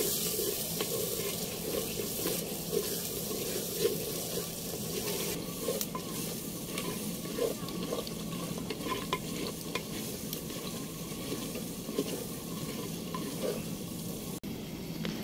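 Wooden spatula stirring and scraping a frying masala in a clay pot, over a steady frying hiss, with scattered knocks of the spatula against the pot.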